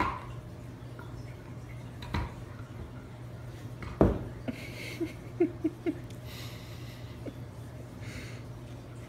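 Siberian husky mouthing a man's hand: a thump about two seconds in and a louder one at about four seconds, short breathy snuffling bursts, and a quick run of four short high whimpers about halfway through, over a steady low hum.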